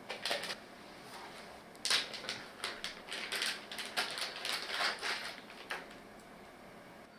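Hands handling an item during unboxing: a couple of sharp clicks at the start, then a dense run of irregular clicks and crackly rustles from about two seconds in to near six seconds.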